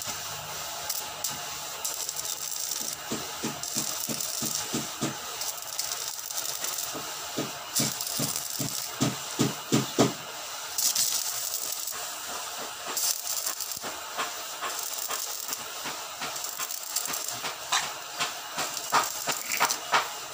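Stick welding with a small portable welding machine: the electrode's arc crackling and hissing unevenly, with clusters of sharp pops about eight to ten seconds in and again near the end.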